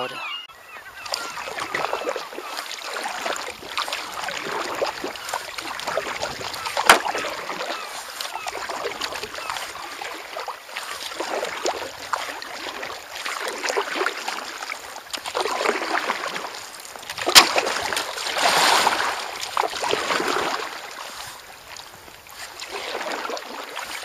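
Paddle strokes of an inflatable kayak splashing in choppy water, in a rough rhythm of a stroke every second or two, with gulls calling. There are a couple of sharp knocks, the loudest about two-thirds of the way through.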